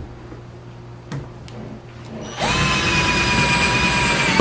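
Cordless drill spinning up about two seconds in and running at a steady speed as its bit drills a hole through the Camaro's sheet-metal trunk lid. A couple of light clicks come before it starts.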